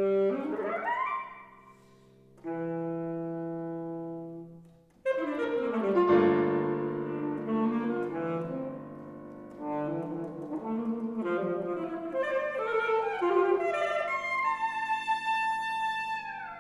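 Alto saxophone and piano playing contemporary classical music. A held low note fades into a short pause about five seconds in; then both instruments come in loudly with a busy run of quick notes, and a held high note bends downward near the end.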